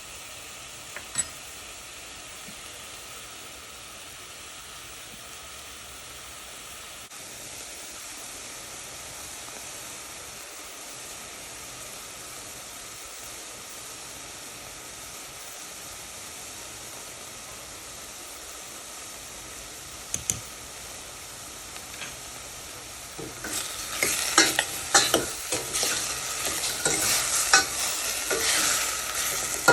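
Food sizzling steadily in hot oil in a pan. From about two-thirds of the way in, a utensil stirs it, scraping and clicking against the pan.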